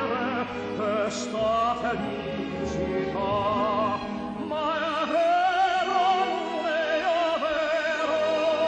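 Music: a singer in operatic style with a wide vibrato, holding long notes over a sustained instrumental accompaniment.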